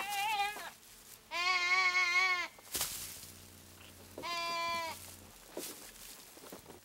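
A sheep bleating in distress while a wolf holds it in its jaws: three bleats, the first trailing off about half a second in, a loud quavering one about a second and a half in, and a shorter, steadier one about four seconds in. A couple of brief knocks come in between.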